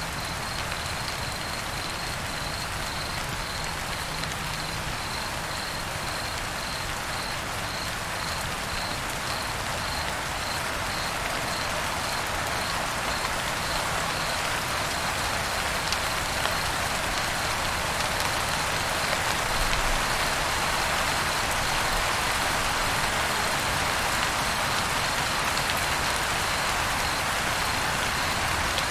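Light rain falling steadily, with crickets chirping in an even, pulsing rhythm. The rain grows a little louder about halfway through.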